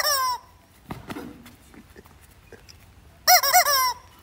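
Yellow rubber chicken squeeze toy squawking: a squeal tailing off at the very start, then a short burst of squawks about three seconds in. Each squawk is the signal for the players to jump.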